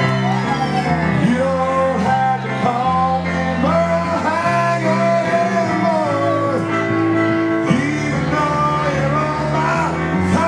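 Live piano-bar music: a singer's voice carrying a melody over sustained piano chords.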